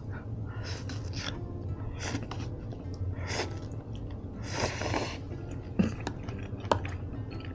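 Close-miked eating sounds: chewing and slurping of food in several short noisy bursts, then two sharp clicks a little before the end.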